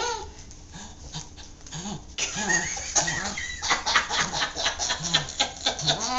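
A back scratcher raking quickly over a pug and border terrier mix's back, about three or four strokes a second, with short low grunts from the dog.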